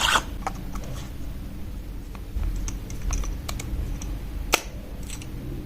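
Scattered small plastic clicks and taps from handling a GoPro Hero 10 as a battery is slotted into its battery compartment. One sharper click comes about four and a half seconds in.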